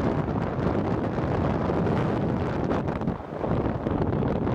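Wind buffeting the microphone of a moving open vehicle, a steady low rumbling rush with the vehicle's running noise underneath; the loudness dips briefly about three seconds in.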